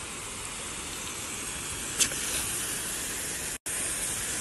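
Water spraying from a garden hose nozzle: a steady hiss, with a short click about two seconds in and a momentary cut-out about three and a half seconds in.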